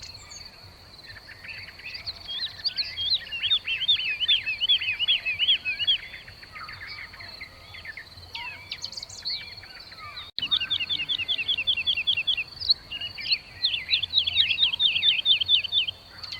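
Weaver birds chattering: fast runs of sharp, repeated chirps, over a steady high insect drone.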